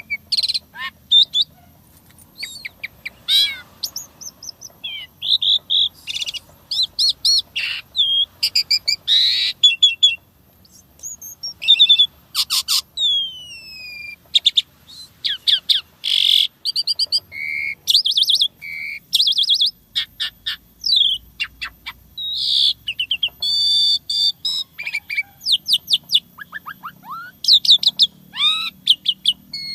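Asian pied myna (jalak suren) singing a continuous, varied song of short whistles, falling glides, rapid trills and chattering clicks, packed with mimicked 'isian' phrases.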